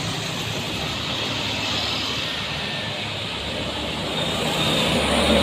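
A bus's diesel engine pulling up a steep hill, a steady low drone that grows louder near the end as the bus approaches.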